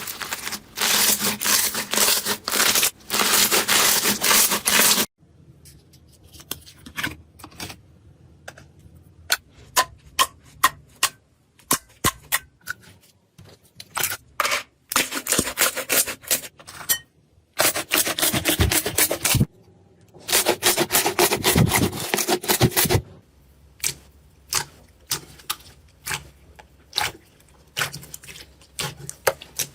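Slime being handled, making dense crackling and popping clicks for about five seconds, then scattered sharp pops with two more dense crackling stretches. The sound changes abruptly several times where one clip cuts to the next.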